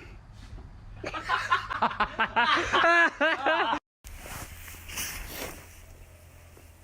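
A person laughing hard in a quick string of short bursts. It stops abruptly just before four seconds in.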